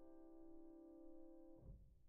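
Faint background music with held instrumental notes that stop about one and a half seconds in, ending on a brief low thump.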